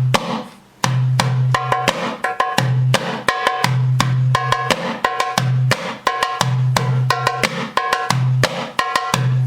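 Arabic tabla (darbuka) played by hand in the Saidi rhythm: deep, booming doom strokes in the centre of the head alternate with sharp tek strokes at the edge and quick filler strokes, in a steady repeating eight-count pattern.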